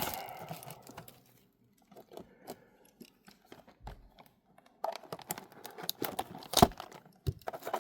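Plastic shrink wrap on trading-card boxes being cut with a blade and crinkled, fading out early on, then resuming after a pause with rustling, small clicks and one sharp click.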